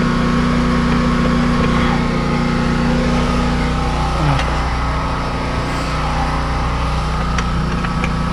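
An engine running steadily at idle, a constant low drone, with a few faint clicks near the end.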